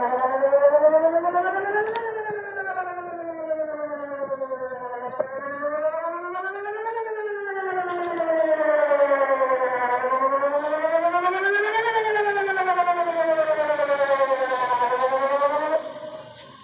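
Whelen WPS-2910 electronic outdoor warning siren sounding a wail, its warbly tone rising and falling in pitch, each rise or fall taking about two and a half seconds. It stops abruptly about a second before the end.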